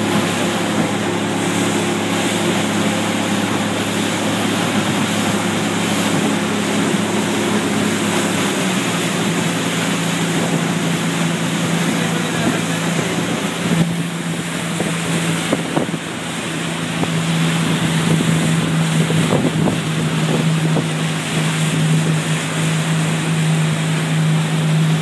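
A boat's engine running with a steady hum under the rush of its wake and wind buffeting the microphone. About a third of the way in the engine's hum changes note and then holds steady.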